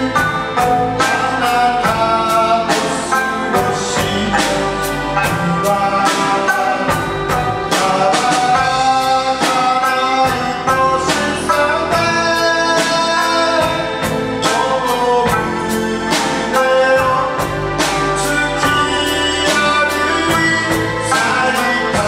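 Live band with drum kit, guitars and keyboard playing a song while a singer sings, with a steady beat of about two drum strokes a second.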